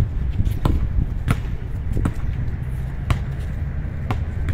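A basketball dribbled on an outdoor hard court: about six sharp bounces a little under a second apart, over a steady low rumble.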